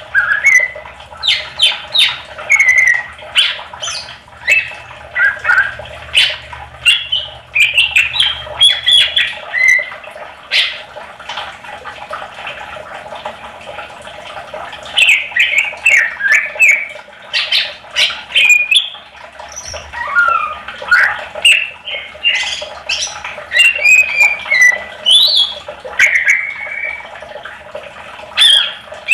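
Greater green leafbird (cucak ijo) singing a fast, varied stream of sharp chirps, whistled glides and squawky chatter, thinning briefly about halfway through. It is the continuous 'gacor' song used as a lure to set other leafbirds singing.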